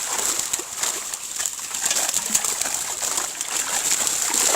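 Water splashing and sloshing in a shallow pond, in irregular bits under a steady high hiss, with birds calling.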